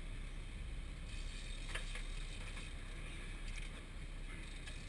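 Steady low rumble and hiss of a sportfishing boat at sea, engine and water noise, with a few faint clicks.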